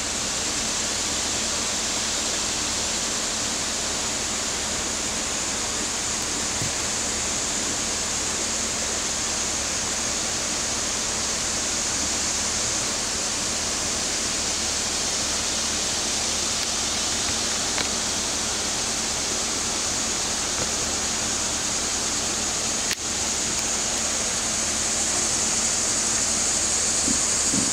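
Creek water running steadily over rocks, a constant even rushing hiss.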